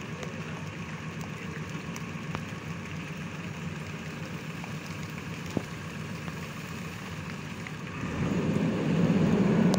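JCB backhoe loader's diesel engine running steadily, growing louder about eight seconds in as the arm moves. A single sharp click just past halfway.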